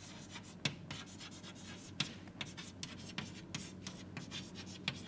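Chalk writing on a blackboard: short, irregular taps and scratches of the chalk as words are written, over a faint steady low hum.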